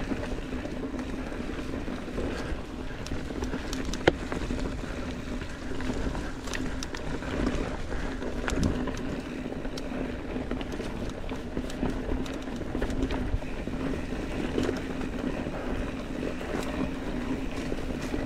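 Mountain bike rolling along a dirt trail: a steady rush of tyre and wind noise with a constant low hum, scattered small rattles and clicks from the bike, and one sharp click about four seconds in.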